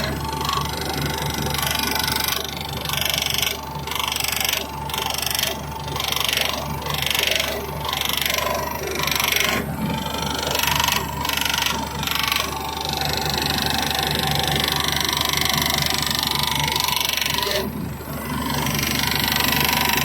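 JCB excavator's hydraulic pump running with the engine, making an abnormal noise that points to a pump problem. For the first part it pulses about once a second, then it settles into a steady whine.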